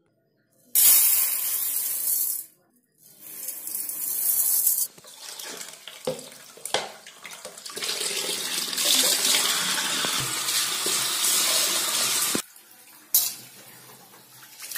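Tap water running hard into an aluminium pot of raw rice, stopping and starting a few times. After about twelve seconds the tap goes off and a hand swishes and rubs the rice in the water to wash it.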